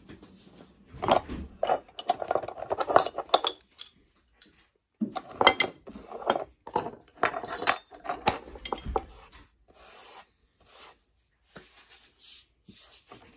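Metal tools and small metal parts clinking, rattling and scraping together as they are handled, in two busy bursts (about a second in and about five seconds in), then a few faint taps.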